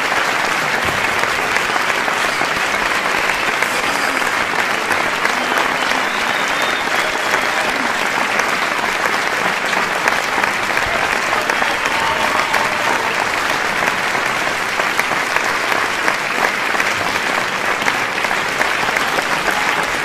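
Large crowd applauding steadily, the clapping dense and unbroken, with a few shouts rising above it.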